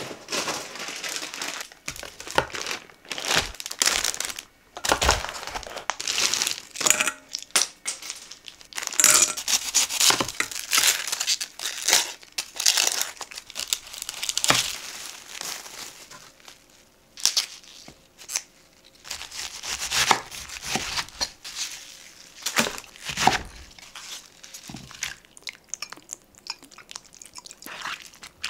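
Packaging crinkling and tearing, handled in irregular bursts of rustling.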